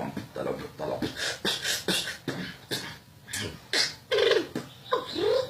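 Beatboxing: a person making fast, rhythmic percussive mouth sounds, with short pitched vocal sweeps about four and five seconds in.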